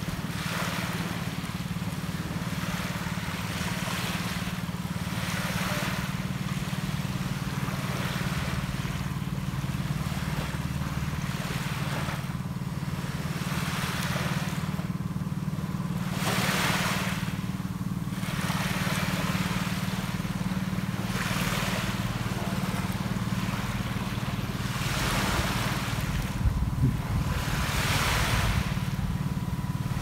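Sea waves washing onto a sandy beach in hissing surges every few seconds, over a steady low engine drone that sets in at the start. A few short knocks come near the end.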